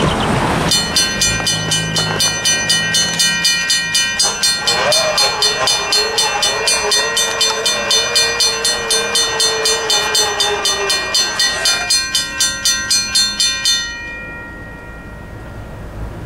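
Railroad crossing warning bells ringing as the signals activate: a mechanical bell striking steadily about three times a second, with an electronic bell sounding along with it, while the gate arms lower. A wavering tone joins from about four seconds in, and the bells stop about two seconds before the end, once the gates are down.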